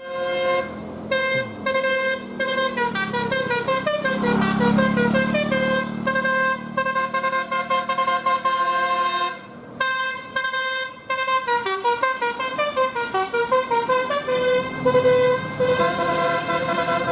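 Indonesian bus 'telolet' horn, a set of electric multi-trumpet horns playing a fast tune of stepping notes, with a brief break about ten seconds in.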